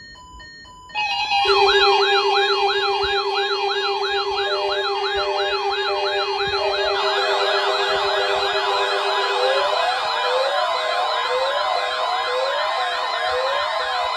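Weather alert radios sounding their alarms for a NOAA Weather Radio required weekly test. After a faint stutter of tones, several loud alarms overlap: warbling siren-like tones rising and falling about twice a second over steady and pulsed beeps. A low steady tone drops out about halfway through.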